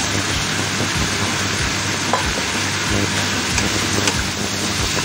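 Carrot, potato and green bean strips sizzling and frying in a hot pan as they are stirred, with a few light clicks of the utensil against the pan.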